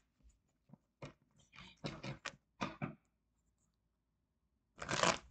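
Tarot cards being handled and shuffled in the hands: a run of soft card taps and rustles, then a pause and one louder rustle near the end.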